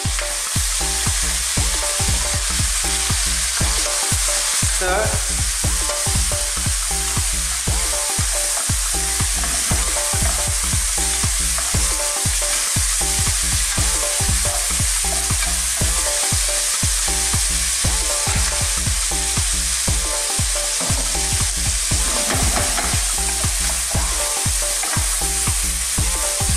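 Chicken drumsticks and chopped aromatics (onion, lemongrass, ginger, galangal) sizzling in hot oil in a frying pan, stirred again and again with a wooden spatula scraping across the pan.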